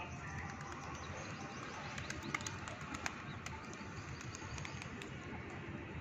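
Flock of feral rock pigeons cooing, with many scattered sharp clicks over a steady low hum.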